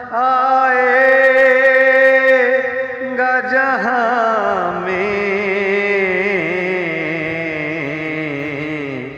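A man singing a naat (devotional poem) solo and unaccompanied, drawing out long held notes with wavering ornaments. The melody sinks gradually lower through the second half.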